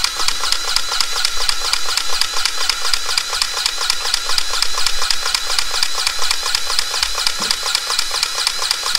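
Kubota excavator's diesel engine running steadily, a fast, even mechanical clatter.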